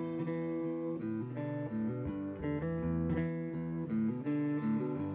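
Guitar music: single plucked notes over ringing chords.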